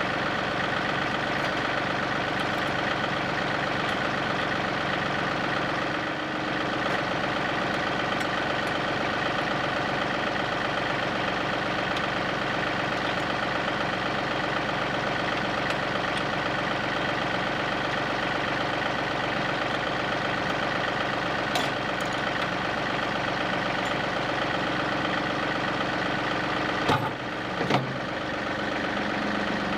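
John Deere 2038R compact tractor's three-cylinder diesel engine idling steadily. Two sharp knocks come near the end, with a few lighter clicks a little before them.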